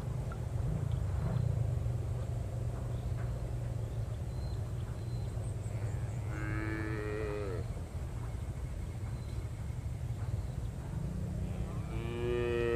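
A cow mooing twice, about six seconds in and again louder near the end, each call dropping in pitch as it ends, over a steady low rumble.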